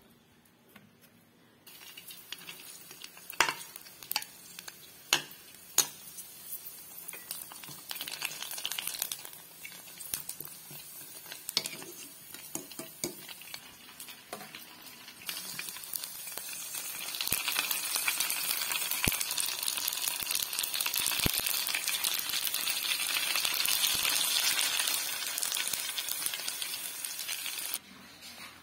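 Puris, small dough discs for pani puri, frying in hot oil in a kadai: a steady sizzle, with several sharp clicks of a steel slotted spoon against the pan in the first few seconds. The sizzle grows much louder about halfway through and cuts off suddenly near the end.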